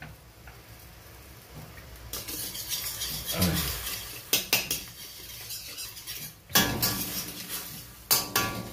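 Metal spoon stirring and scraping in a wok of hot soy-sauce seasoning liquid, with several sharp clinks of metal on metal over a sizzling hiss that builds about two seconds in.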